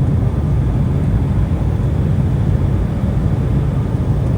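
Cabin noise inside an Embraer E175 regional jet taxiing after landing: a steady low rumble of its idling CF34 turbofan engines and the airframe.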